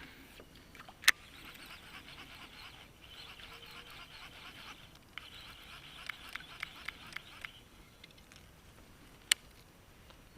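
Fast, chattering wild animal calls, high-pitched, coming in stretches of a few seconds, with a quick run of ticks near the middle. Two sharp knocks stand out: one about a second in and one near the end.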